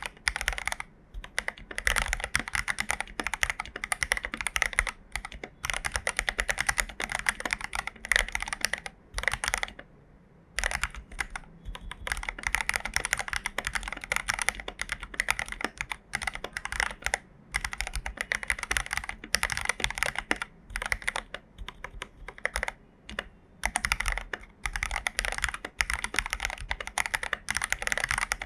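Typing on an AKKO 5075B mechanical keyboard with lubed Jelly Black linear switches: quick runs of keystrokes clacking, broken by short pauses.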